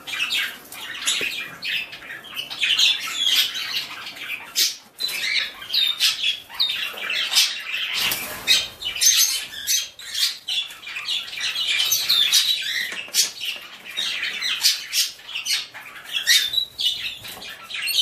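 Canary chirping in a steady stream of short, high calls, with sharp clicks among them.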